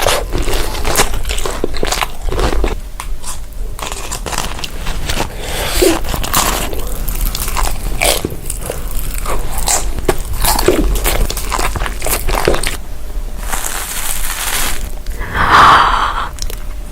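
Crunchy food being bitten and chewed close to the microphone: a steady run of sharp crunches, with a brief louder burst near the end.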